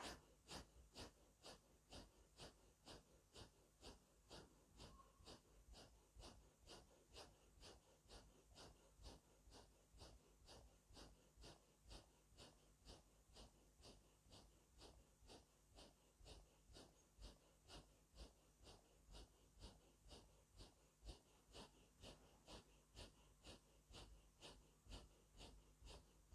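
Faint, quick rhythmic breathing through the nose, about two forceful breaths a second, kept up without a break: the paced 'Allah-Hu' breathing of silent Sufi zikr (zikr-e-khafi), here focused on the third latifa, Sirri.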